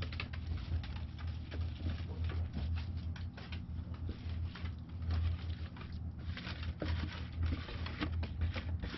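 Damp cardboard and moist worm compost handled with a gloved hand in a plastic bin: rustling and a soft patter of small crackles as cardboard is laid in and wet muck is tipped from a bucket, over a steady low hum.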